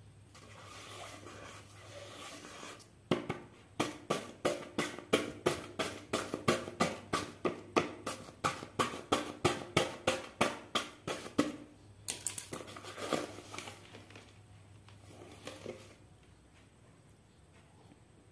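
Printed paper being scratched and rubbed by hand in quick back-and-forth strokes, about three a second, after a few seconds of softer scraping. The strokes give way to a few seconds of softer paper rustling.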